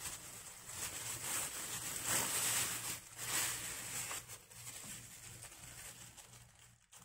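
Chicken wings being squished and turned in a wet soy-and-honey marinade by a hand in a plastic glove, with the glove rustling, in a few bursts that die away about four seconds in.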